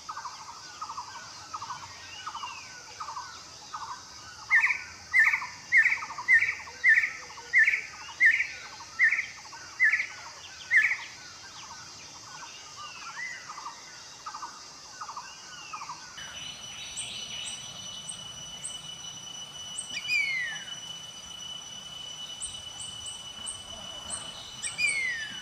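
Birds calling: a fast run of repeated calls with a louder series of about ten sharp notes over it, then an abrupt change to a steady high whine with a few descending whistled calls.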